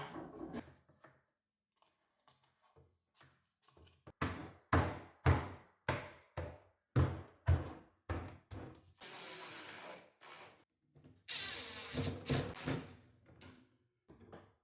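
Knocking and thumping on wood during kitchen cabinet installation, a run of about seven knocks roughly half a second apart, then two stretches of rubbing or scraping.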